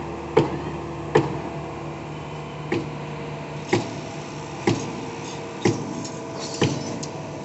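Steady diesel drone of a truck mixer and trailer concrete pump working on a concrete pour, with sharp knocks about once a second.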